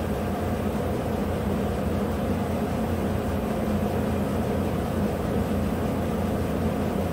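A GM 5.3-litre V8 in a 2015 GMC Sierra idling steadily at about 610 rpm.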